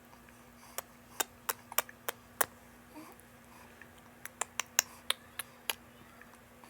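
Two runs of short, sharp clicks, about three a second, the first about a second in and the second around four seconds in, over a faint steady hum.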